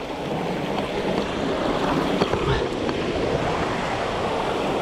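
Steady rush of a waterfall and river water, a continuous even noise that grows a little louder over the first second or so.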